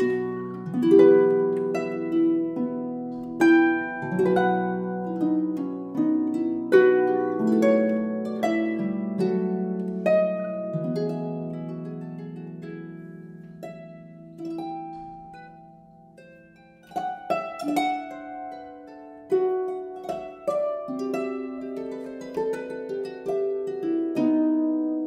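Background music: a slow piece of plucked-string notes, each ringing and dying away. The notes fade to a lull about two-thirds through before the playing picks up again.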